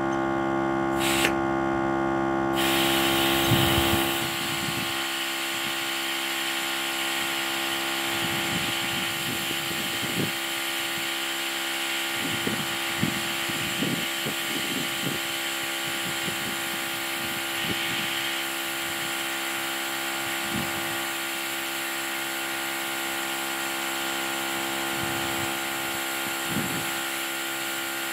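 A portable tire air compressor running steadily with a motor whine and hiss. About two and a half seconds in a hissing band comes in, and a low hum drops away soon after.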